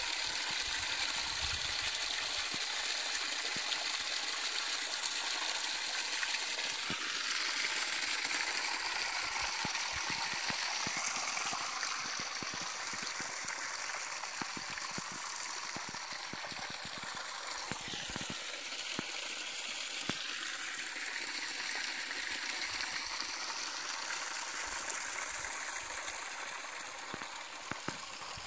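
Rushing water, a steady hiss of a stream or waterfall, with scattered small clicks and knocks.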